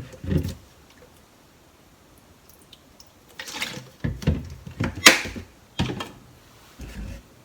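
Sake poured from a tablespoon into a small cup, in short splashes, among a few light knocks of bottle and spoon being handled.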